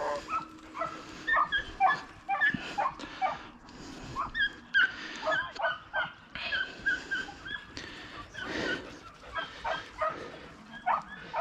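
A pack of hunting hounds yelping and baying while running a rabbit. Several dogs give short, high-pitched cries that overlap, a few a second, without a break.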